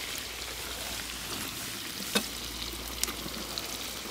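Raw goose meat frying in hot fat and onions in a kazan, a steady sizzle with a few sharp pops, the loudest about two seconds in.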